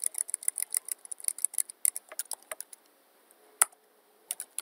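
Computer keyboard being typed on: a quick run of key clicks, then a pause and a few single keystrokes, one louder about three and a half seconds in.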